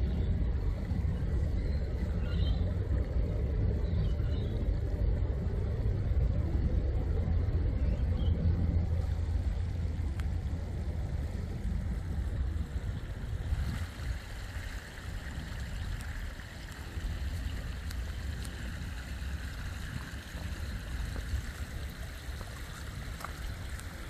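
Outdoor wetland ambience: a steady low rumble with a few faint bird chirps in the first nine seconds. About halfway through the rumble eases and an even hiss comes in.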